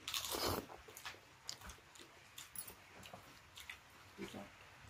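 A person chewing soft food close to the microphone, with wet mouth clicks and smacks. It opens with a louder, noisy bite lasting about half a second.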